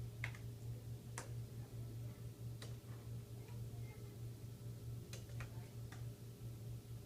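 Low steady hum of an ultrasound machine in a small room, pulsing evenly a few times a second, with a few irregular sharp clicks scattered through it.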